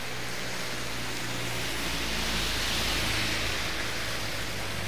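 Heavy rain falling steadily, with passing vans and a pickup running by on the wet road; their engines hum low and their tyres hiss through the water, swelling about halfway through.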